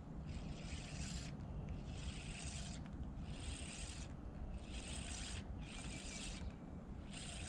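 An insect, such as a bush cricket, calling in a run of hissing buzzes, each a little under a second long with short gaps between them.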